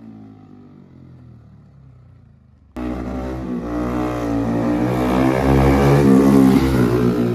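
Bajaj Pulsar RS200's single-cylinder engine through an aftermarket Akrapovic exhaust, revving hard in a fly-by. It cuts in suddenly about three seconds in, grows louder as the bike nears, and eases off slightly near the end.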